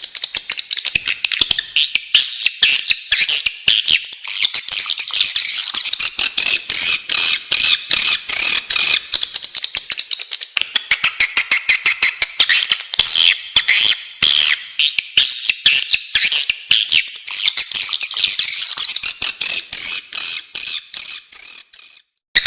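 Swiftlet lure call: a dense, continuous twittering of rapid chirps and clicks from many swiftlets, the sound used to draw swiftlets into nesting houses. It fades and stops briefly near the end.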